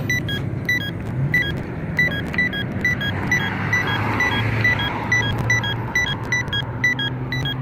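Accessible pedestrian signal push button sounding its locator tone: a short beeping tick repeating at an even pace while waiting for the walk signal. Traffic runs underneath, with a vehicle passing in the middle.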